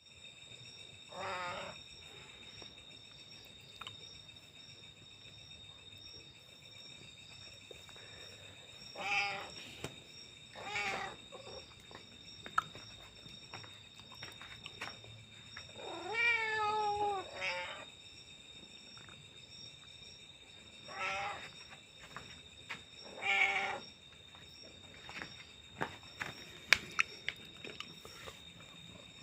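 A domestic cat meowing six times, with long gaps between the calls; the longest call comes about halfway through and rises then falls in pitch. A steady high-pitched whine runs underneath, and a few sharp clicks come near the end.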